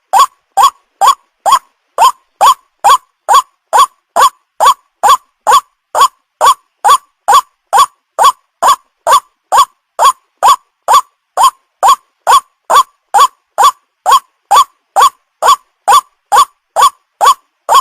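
White-breasted waterhen call, a short single note repeated at an even pace of about two a second: a looped lure call used to attract young waterhens.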